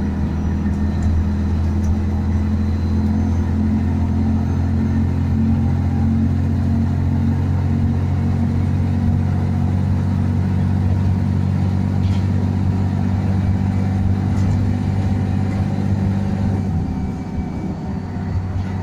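Scania N113DRB double-deck bus's rear-mounted six-cylinder diesel engine and road rumble heard from inside the passenger saloon as the bus cruises steadily; the engine note eases off a little near the end.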